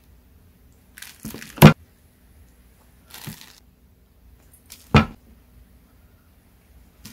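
Plastic food tubs being handled and swapped: a brief rustle, then a sharp plastic knock about a second and a half in, a soft rustle near the middle, and a second sharp knock about five seconds in.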